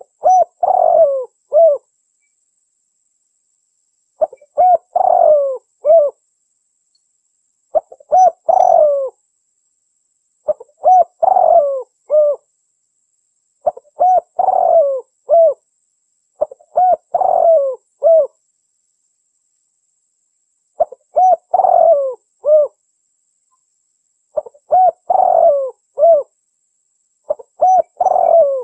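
Spotted dove (tekukur) cooing: the same short phrase of three coos, repeated nine times at about every three to four seconds, played as a lure call to draw wild doves in.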